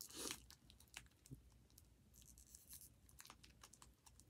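Faint fingernail clicks and scratches as fingers pick at tape and small plastic packaging, with a brief soft crinkle or tearing hiss about two seconds in.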